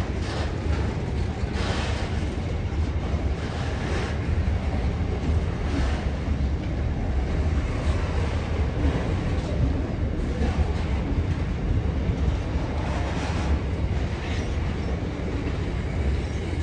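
Container wagons of a long intermodal freight train rolling past on the track: a steady low rumble of steel wheels on rail, with a clack every second or few as wheelsets cross rail joints.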